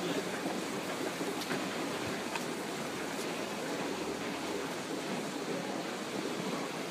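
Wicker toboggan's wooden runners sliding over a paved street: a steady rushing scrape with a few faint ticks.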